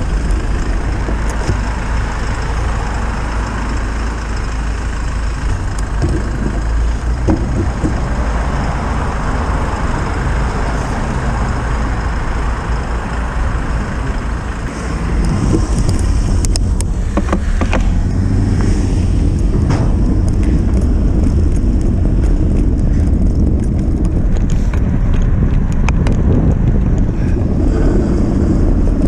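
Wind rumbling on the microphone of a bicycle-mounted camera while riding on a town road, mixed with the noise of passing cars and vans; it gets louder about halfway through.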